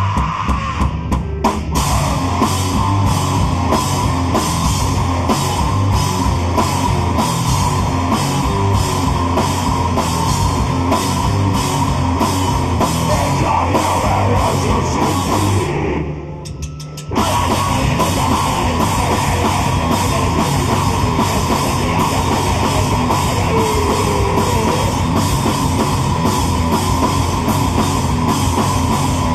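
Mathcore band playing live and loud: drum kit with even, regular hits over heavy rock guitar and bass. About sixteen seconds in the band stops dead for about a second, then crashes back in.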